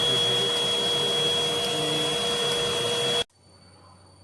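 Rowenta XPert 6.60 cordless stick vacuum running steadily with a high-pitched whine, then switched off about three seconds in, its motor cutting out abruptly.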